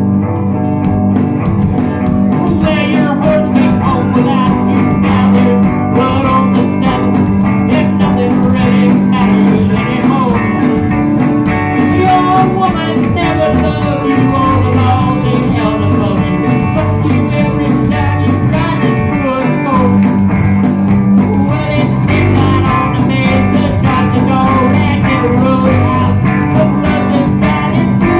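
Rock band playing live: electric guitars over a drum kit, with a steady cymbal beat.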